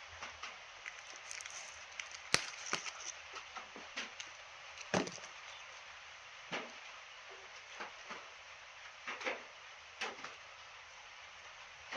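Handling noise: scattered sharp clicks and crackles at irregular intervals, the loudest a little past two seconds in and about five seconds in, over a faint steady hiss.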